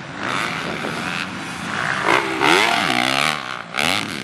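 Motocross dirt bike engines revving hard and backing off over and over as riders hit the jumps, the pitch rising and falling several times, loudest about halfway through.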